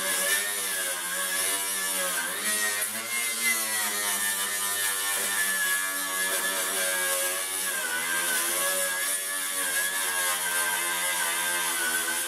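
Electric angle grinder with a wire brush running steadily while scrubbing rust off a flat steel sheet, its motor whine wavering slightly in pitch.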